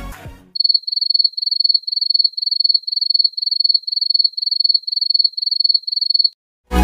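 Cricket-chirping sound effect: a high, trilled chirp repeating steadily about three times a second, then cutting off. It is the stock "crickets" cue used to signal an awkward silence.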